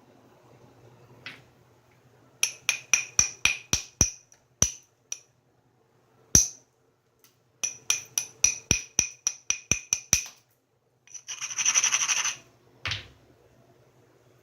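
Hammerstone tapping on the edge of a stone being knapped: quick runs of sharp, ringing clicks as small flakes are taken off to prepare striking platforms, then a brief scraping rub of stone on stone and one duller knock near the end.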